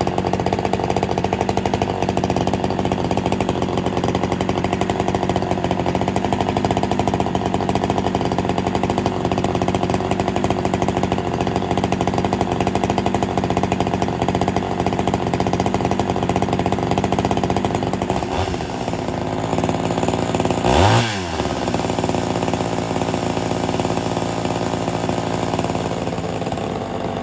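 Ported Homelite Super XL-130 two-stroke chainsaw engine running steadily, with a single quick rev about 21 seconds in that falls back down.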